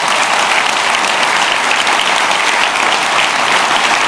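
Large indoor audience applauding steadily, a dense, even clapping that holds at one level.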